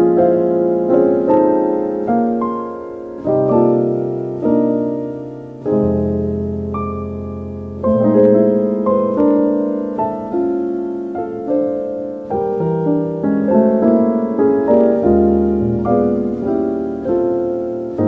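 Slow, gentle piano music: chords and single notes struck about every second or two, each ringing out and fading.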